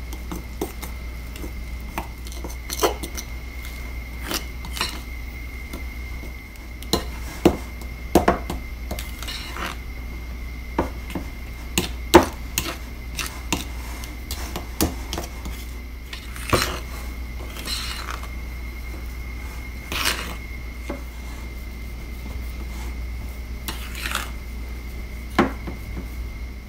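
Metal fork stirring and scraping scone dough in a mixing bowl, with irregular clinks and knocks of the fork against the bowl's side, over a steady low hum.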